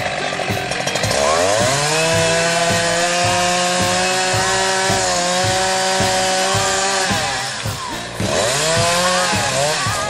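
Chainsaw revving up about a second in and held at full throttle as it cuts into leylandii branches, dropping back briefly near seven seconds and revving up again. Rock music with a steady beat plays underneath.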